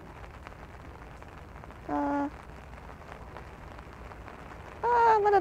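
Light rain pattering steadily as an even hiss. A short hummed voice sound comes about two seconds in, and a spoken word near the end.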